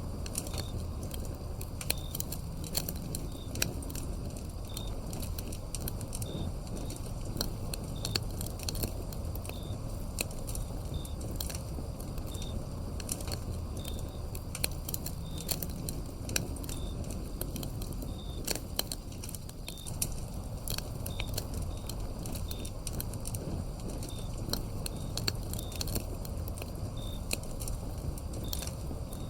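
Wood fire burning with frequent sharp crackles and pops over a low steady rumble of flame, with crickets chirping in a regular high chirp about once a second.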